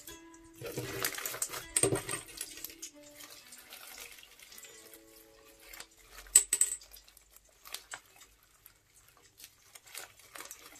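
Hands squishing, pressing and stretching green foam-bead slime: wet squelches and crackling pops from the beads, loudest about one to two seconds in and in a sharp burst about six and a half seconds in.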